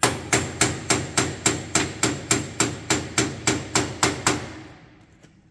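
Hammer tapping rapidly on metal, about four even blows a second with a metallic ring, stopping about a second before the end: pop rivets being driven into drilled holes that are slightly too small for them.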